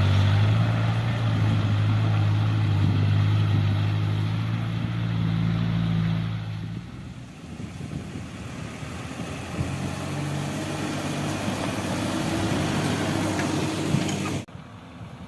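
Engine of heavy road-construction machinery running loud and steady, then falling away after about seven seconds to a quieter engine sound. The sound cuts off abruptly near the end.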